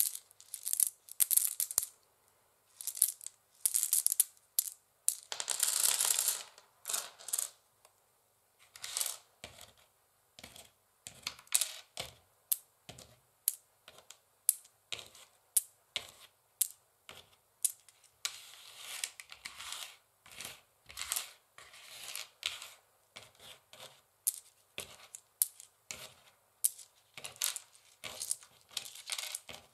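Long fingernails tapping and scratching on a wooden chessboard: quick, irregular clicks, broken by a longer scratching stretch about five seconds in and more scratching around twenty seconds in.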